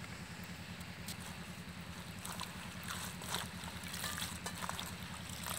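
Shredded banana flower florets rustling and crackling as a hand tosses them in an aluminium bowl, starting a little over two seconds in, over a steady low rumble.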